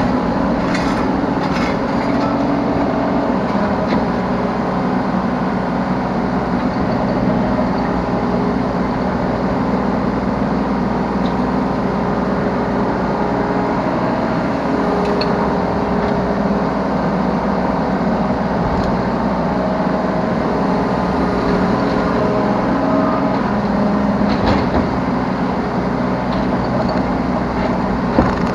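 Yanmar B3 Sigma 3-tonne mini excavator's diesel engine running steadily as the machine works, heard from the operator's seat, with a few short knocks.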